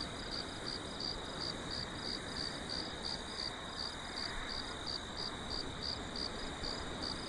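Cricket chirping in a steady, even rhythm, about three to four high chirps a second, over a steady background hiss.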